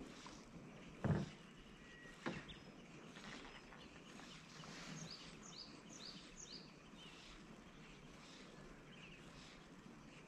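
Quiet lakeside ambience with a short run of high, quick bird chirps between about five and seven seconds in. A dull thump about a second in, and a lighter knock a second later, are the loudest sounds.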